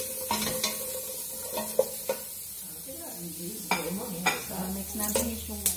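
A wooden spoon stirring and scraping in a stainless steel stockpot, knocking against the pot about eight or nine times at irregular intervals, over a faint sizzle of chopped aromatics dry-sautéing without oil.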